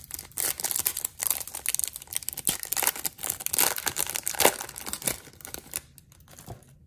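Trading-card pack wrapper crinkling and tearing as it is ripped open: a dense run of crackling that dies down about a second before the end.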